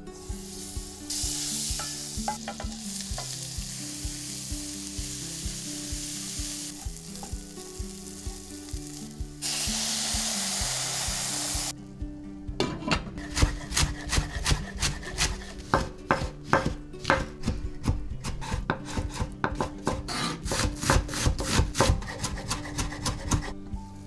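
Fat sizzling in a stainless steel pot, louder for about two seconds around ten seconds in. From about halfway, rice is stirred in the hot fat with a metal spoon, making a quick run of clicks and scrapes against the pot, several a second.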